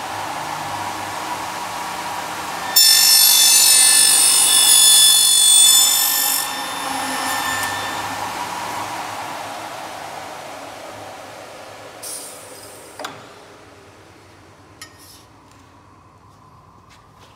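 Elumatec AF 222 end milling machine: the motor runs, and about three seconds in the cutter bites into the profile with a loud, high-pitched ringing screech lasting roughly four seconds. The motor then winds down gradually over several seconds, with a couple of knocks near the end.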